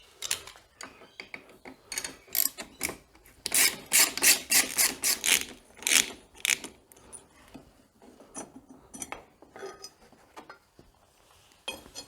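Hand tools working on a motorcycle's exhaust mounting: a run of quick metallic clicks and clinks, densest and loudest in the middle, then sparser ticks.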